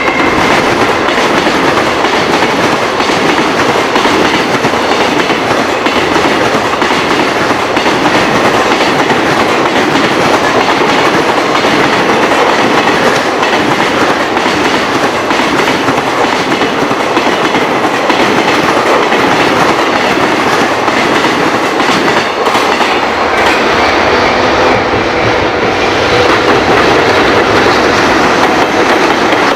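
A long freight train passing close by without a break, its wheels clattering steadily over the rail joints.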